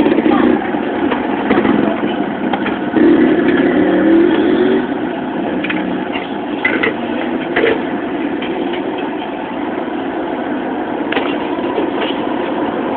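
Steady street traffic noise with engines running, one vehicle louder for a couple of seconds near the start, and a few short clicks and knocks in the middle and near the end.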